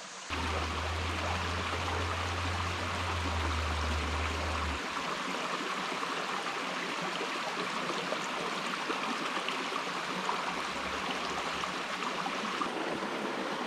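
Shallow mountain creek running over rocks in small cascades, a steady rushing flow. A low steady hum sits under it for the first four seconds or so and faintly again near the end.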